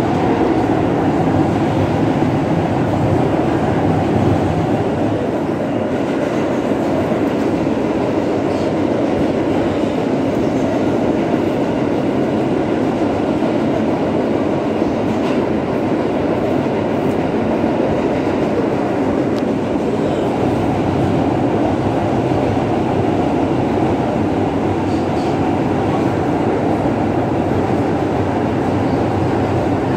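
New York City subway car on the L line running along the track, heard from inside the car: a steady, loud rumble of wheels on rails with a few faint clicks.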